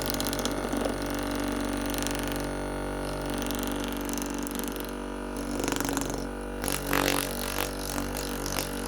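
FitIndex electric percussion massage gun running at its highest speed setting: a steady motor buzz, with a few brief clicks and rustles in the second half.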